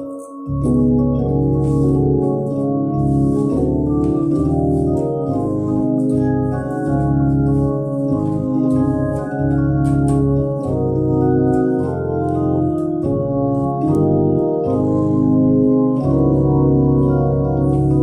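Two-manual Hammond organ played with both hands: sustained chords over a bass line, the notes changing every half second or so. The low notes drop out at the very start and come back in about half a second in.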